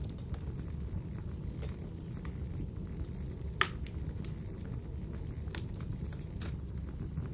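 Wood fire crackling: a steady low rumble with scattered pops, one sharper pop about three and a half seconds in.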